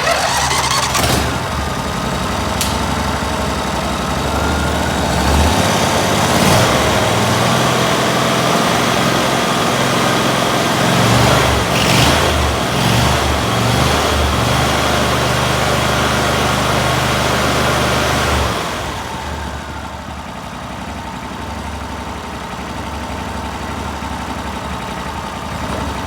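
A 14 hp Briggs & Stratton lawn tractor engine, started by jumping the starter solenoid, fires right away and runs steadily. About 18 seconds in it drops to a quieter, lower speed, running evenly: a good runner.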